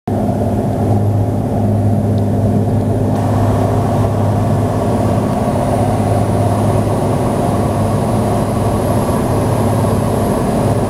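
Cirrus SR20 light aircraft's piston engine and propeller droning steadily, heard inside the cabin, with a rush of airflow that grows a little louder about three seconds in.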